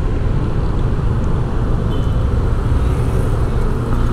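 Road traffic noise: a steady low rumble of cars passing on a city avenue.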